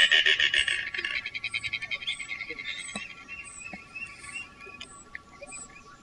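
Anhinga giving a rapid rattling call, loud at first and fading away over the next couple of seconds.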